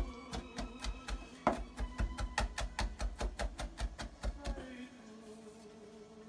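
Chef's knife rapidly chopping on a cutting board, finely mincing garlic and shallot: a quick, even run of knife strokes that stops about four and a half seconds in. Background music plays under it.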